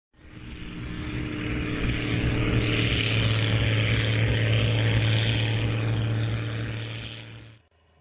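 A loud engine drone with a steady low hum, swelling in over the first two seconds and dying away just before the end.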